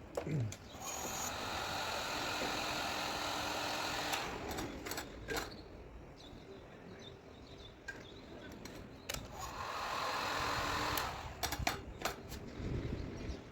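A small electric power tool whirring in two runs, the first about three seconds long and the second about a second and a half near the end, with sharp clicks and taps between them.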